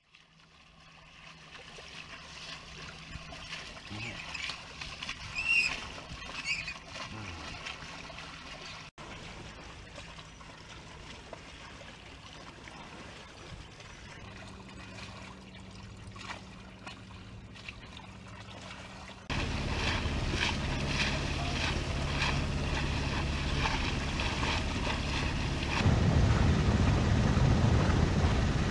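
Sailing yacht under way: water rushing along the hull with a steady low hum. It gets louder about two-thirds of the way in, and near the end wind buffets the microphone.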